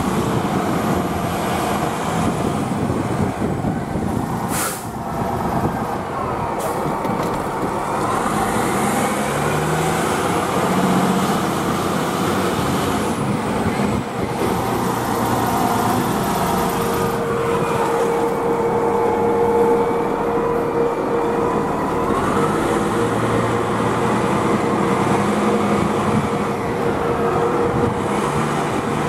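Fire truck's diesel engine running, heard from inside the cab as the truck drives slowly and manoeuvres, its pitch rising and falling with engine speed. A short sharp hiss, typical of an air brake releasing, about five seconds in, and a steady tone from about halfway through.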